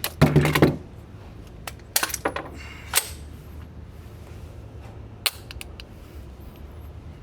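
AR pistol (ARP) gunshots: a quick string of three or four, another short string about two seconds in, then single shots about three and five seconds in, with small metallic clicks. The string breaks off as the gun jams, which the shooter puts down to spent cases not ejecting right.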